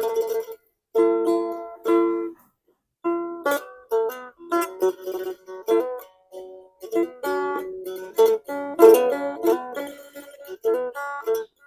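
Phin, the Isan plucked lute, played solo: short phrases of quickly plucked notes, broken by a brief pause near the start.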